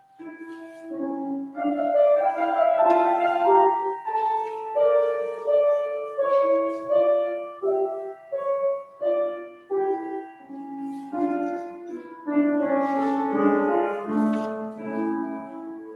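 Instrumental music played on a keyboard instrument: a melody over chords, one note after another at an even pace.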